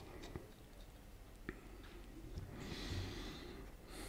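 Quiet workbench sound: a few faint small clicks, and a soft breath out about three seconds in.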